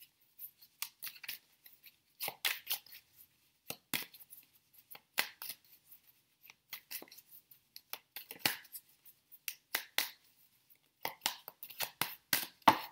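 A deck of tarot cards being shuffled by hand: quick papery slaps and swishes of cards sliding against each other, coming in irregular clusters.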